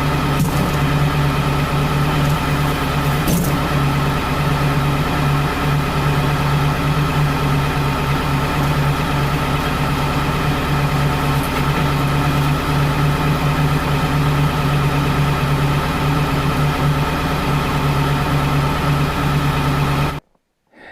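An engine running steadily at an even speed, a constant hum with no change in pitch, cutting off abruptly near the end.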